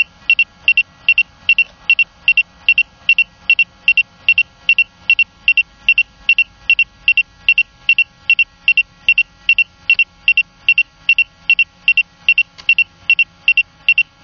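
Electronic warning beeps from the Autel Evo Lite drone's controller, one high steady-pitched tone repeating evenly about twice a second while the drone descends to land.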